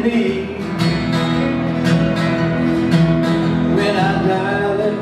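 An acoustic string band plays an instrumental passage: strummed acoustic guitar, fiddle and upright bass, with long held notes that slide in pitch.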